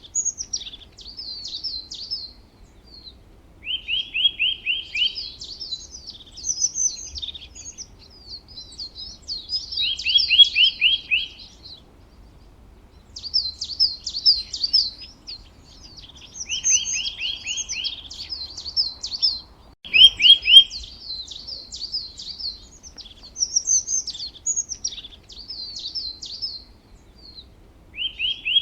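Songbirds singing: bursts of high, quick chirping phrases with short pauses between them, broken every several seconds by a lower, fast rattling trill. A single sharp click about 20 seconds in.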